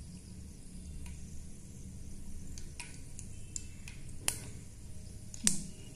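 Mustard seeds spluttering in hot oil in a kadai: scattered small pops, with two sharper ones about four and five and a half seconds in. The popping shows the oil is hot enough for tempering.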